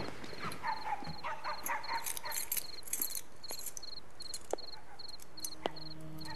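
Crickets chirping in a steady, even pulse of about three chirps a second, with keys jingling and clicking at a door lock in the first few seconds. A low, held music note comes in near the end.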